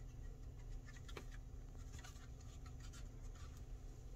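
Faint scratching and light clicks of fingers handling the plastic housing of a small battery-powered desk fan as it is turned around in the hand, over a low steady hum.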